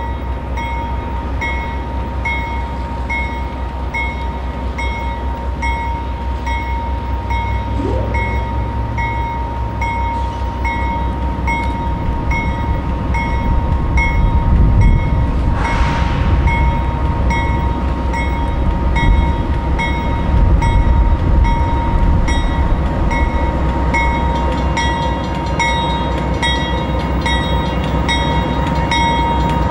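A GE AC44-9CW diesel-electric locomotive, with its 16-cylinder engine, leads a doublestack container freight slowly past. The low engine rumble grows louder as it approaches. A steady high tone and a high sound repeating about one and a half times a second run over it, with a short hiss about halfway through.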